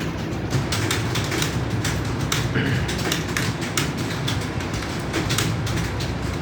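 Several computer keyboards being typed on at speed, keys clattering in a dense, irregular patter over a steady low hum.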